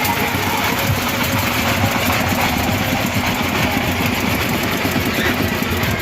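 An engine running steadily at a constant speed, with a low, even vibrating hum.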